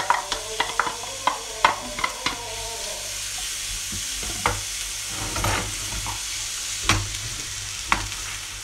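Finely chopped onion sizzling in hot oil in a frying pan. A wooden spoon taps and scrapes the onion out of a plastic chopper bowl, with quick clicks in the first couple of seconds, then stirs it around the pan with occasional knocks.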